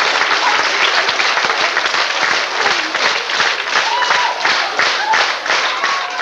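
Concert audience applauding. In the second half the clapping falls into a rhythmic unison beat of about three claps a second, with a few voices calling out over it.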